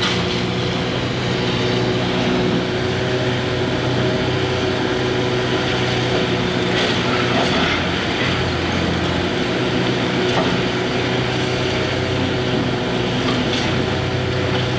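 Heavy diesel engine of a Hitachi 670 LCH excavator running steadily under work, its pitch shifting slightly about eight seconds in, with a few light knocks in the middle.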